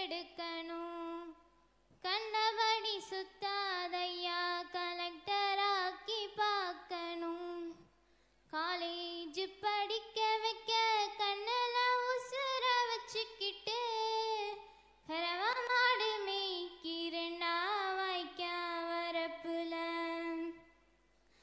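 A girl singing a Tamil folk song solo into a microphone with no accompaniment, in long held phrases with short pauses between them.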